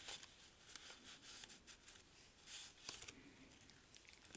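Near silence with faint rustling and small ticks of paper and card being handled as the pages of a handmade junk journal are turned and explored.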